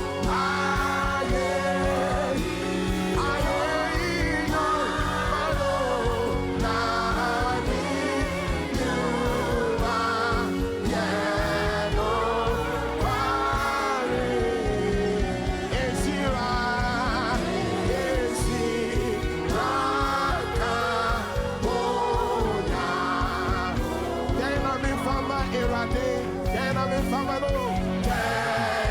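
Gospel worship music: sung vocal lines, with choir voices, over a steady instrumental backing.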